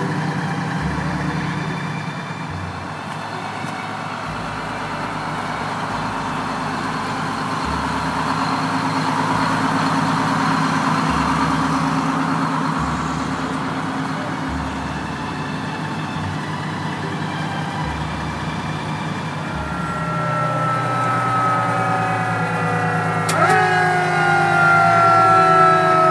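Antique fire engines running steadily at idle. Near the end a siren starts with a sudden rise, then slowly winds down in pitch.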